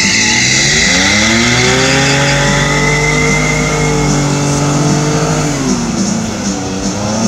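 Engine revved to high revs and held there with tires spinning and squealing in a burnout. The revs drop about five and a half seconds in and climb again near the end.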